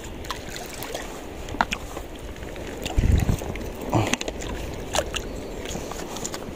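Shallow seawater sloshing and lapping over a reef flat, with a few short splashes and knocks; a low thump about three seconds in and another about a second later.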